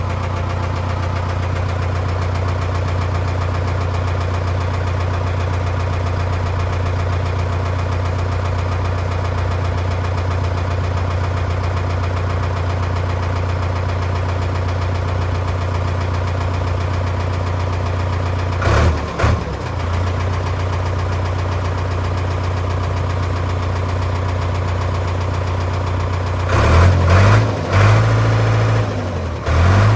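A 555C backhoe's diesel engine idling steadily with a clattering knock, running normally now that the filter O-ring that let it suck air has been replaced. Its engine note surges and bends up and down briefly about two-thirds through, and again several times near the end.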